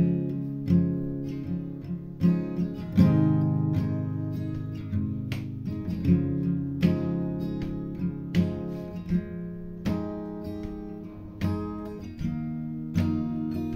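Solo acoustic guitar playing an instrumental piece, chords struck about once a second and left to ring, cycling through G, C, D and A.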